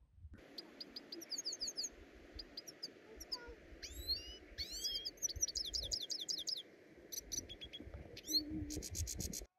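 Small birds chirping and twittering in quick, repeated trills over a steady background hiss, with several birds calling at once; the sound cuts off abruptly near the end.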